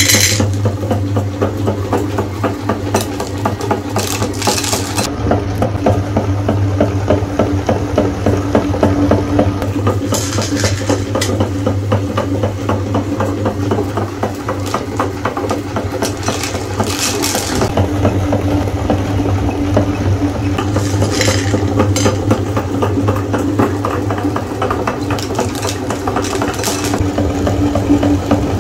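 Electric meat grinder running steadily, its motor humming while M&M candies rattle and crunch through the auger, with brief sharper spells every five seconds or so.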